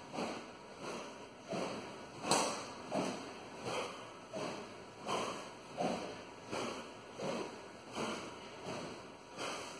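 A training sword swung in continuous cutting drills, each cut a whoosh through the air, about one every 0.7 s in a steady rhythm. A single sharp click a little over two seconds in.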